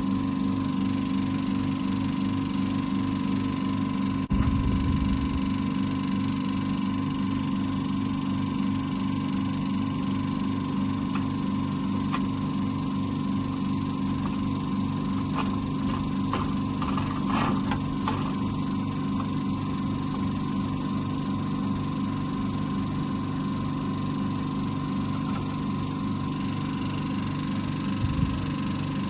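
Steady machine hum with a pulsing low rumble under it. A low thump comes about four seconds in, and a few light clicks or taps follow around the middle.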